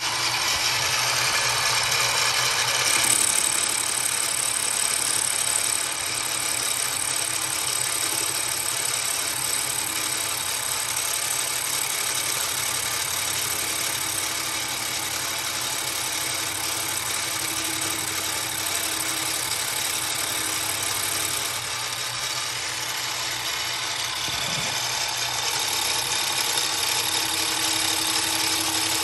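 Drill press spinning a StewMac Safe-T-Planer disc cutter over a wooden block: a steady motor whir with a hiss. A higher hiss joins about three seconds in and drops away about twenty seconds later.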